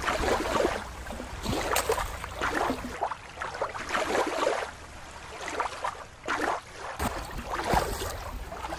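Shallow water running and splashing over rocks, with splashes as toy animals are moved through it. For a few seconds in the middle it drops to a quieter, duller background before the splashing returns.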